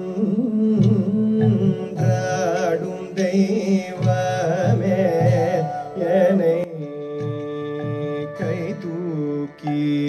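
Male vocalist singing a Tamil song in Carnatic style, with winding ornamented phrases over a steady drone. The voice drops out briefly about two-thirds of the way through while the drone carries on.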